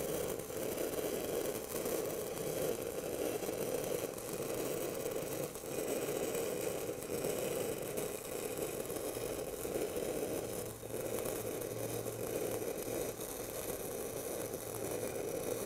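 E6010 stick-welding arc on steel pipe, crackling steadily without a break as the bead is run. The rod is held in tight with a short arc length, the correct technique.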